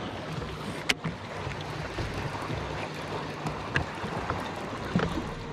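Small waves lapping against a bass boat's hull with wind noise, and a sharp click about a second in.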